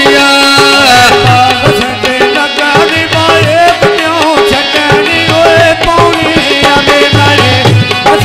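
Live South Asian folk song: a male voice singing over harmonium chords, with a hand-drum beat underneath.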